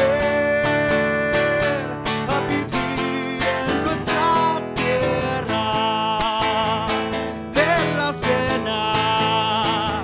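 Acoustic guitar strummed and picked under a singing voice that holds long notes with vibrato.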